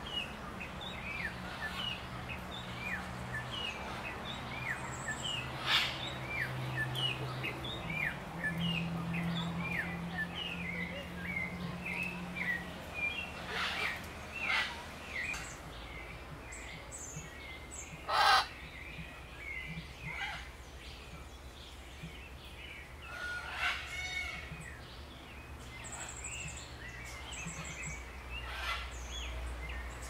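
Birds calling: a quick run of short chirps that thins out about halfway through, with several loud harsh squawks scattered among them, the loudest about 18 seconds in.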